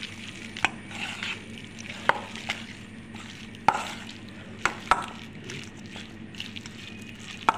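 Spoon stirring chicken strips through a wet egg-and-flour batter in a stainless steel bowl: a soft wet scraping, broken by about six sharp clinks of the spoon against the bowl.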